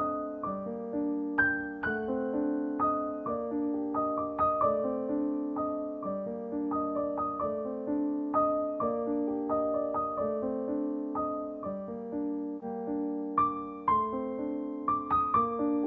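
Soft background piano music: a steady, unhurried run of struck notes and chords that ring and fade.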